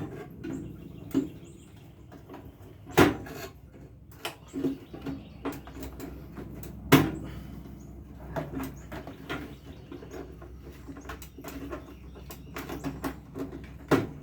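Small clicks, scrapes and rattles of wire connectors being pulled off the control parts inside a microwave oven, with two sharp, louder clacks about three and seven seconds in.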